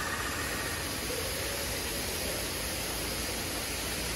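Rain falling in a steady, even hiss.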